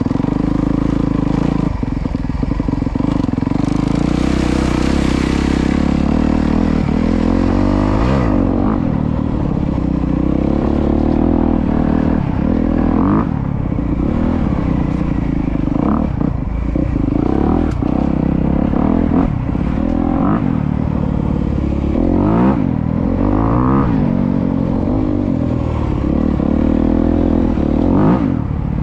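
Honda CRF250R dirt bike's single-cylinder four-stroke engine running while ridden, revving up and down repeatedly. A rushing hiss is heard over it from about four to eight seconds in.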